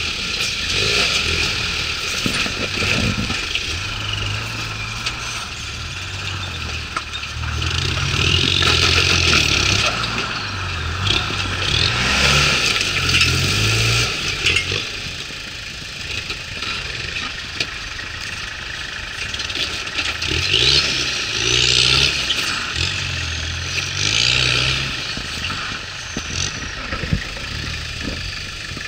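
Lifted Toyota pickup trucks' engines working at low speed over a rock field, the revs rising and falling in uneven surges, with rocks crunching and scraping under the tyres.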